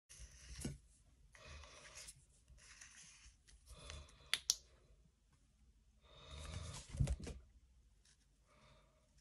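Handling noise from a metal handheld laser pointer being gripped and turned in the hands: a series of short rustling, rubbing scrapes with a few sharp clicks, a double click near the middle and another click a little later.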